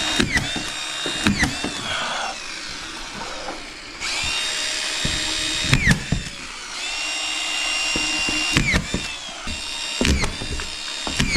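Power drill running in about five bursts of one to two seconds each, its whine rising as it spins up and falling as it winds down, with short knocks between the bursts.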